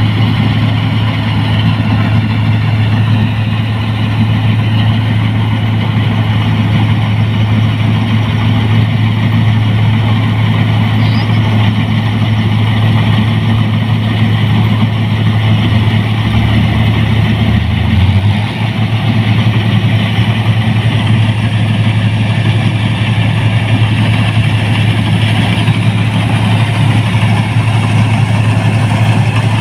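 Rice combine harvester, a 1545 model, running under load as it cuts paddy: a loud, steady low engine hum with the even churning of the threshing machinery. The low hum briefly shifts and dips about two-thirds of the way through.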